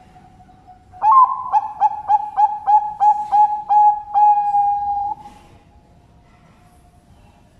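Zebra dove (perkutut) song: an opening coo, a quick run of about nine short clipped notes, and a long held final note, about four seconds in all.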